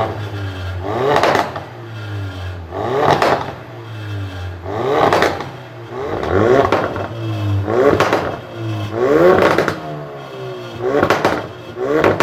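High-performance car engine revved repeatedly while stationary, about seven sharp blips. Each rises quickly in pitch and falls back to a steady idle.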